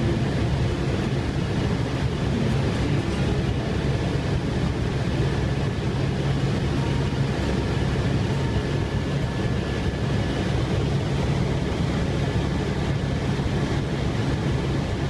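Helicopter in cruise flight heard from inside the cabin: a steady, loud drone of engine and rotor.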